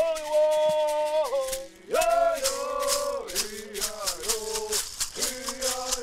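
Chickasaw stomp dance song: men singing long held notes in call and answer, with a short break about one and a half seconds in, over the steady rhythmic shaking of a hand rattle and the dancers' leg shakers.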